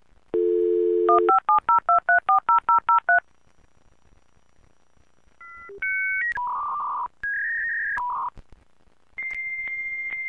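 Dial-up modem connecting. A telephone dial tone is followed by a quick run of touch-tone keypad beeps dialing a number. After a short pause come the modem's shifting handshake tones, then a steady high answer tone with regular clicks near the end.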